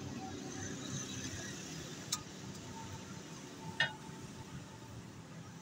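Metal scraper and knife clinking against a flat steel griddle while chicken is scraped and cut on it: two sharp clinks, about two seconds in and again near four seconds, over a low steady background noise.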